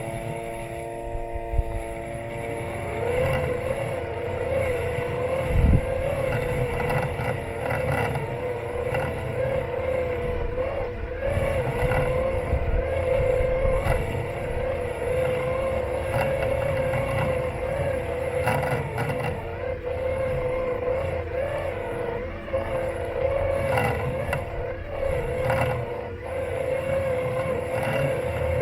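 Robotic lawn mower's electric motors running with a steady whine, heard from on board the mower, and a wavering tone that comes in about three seconds in and holds. Scraping and brushing noises run through it, with one heavy thump about six seconds in.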